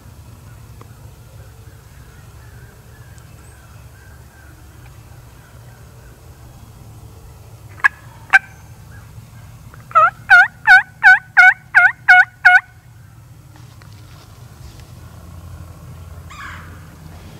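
Turkey yelping: two sharp single notes about eight seconds in, then a loud, evenly paced run of about eight yelps lasting nearly three seconds, over a faint steady low rumble.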